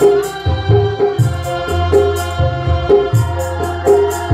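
A small band playing an instrumental: a Roland E-70 keyboard holds sustained organ-like chords over a steady hand-drum beat, with a low bass line and short bright hits keeping time.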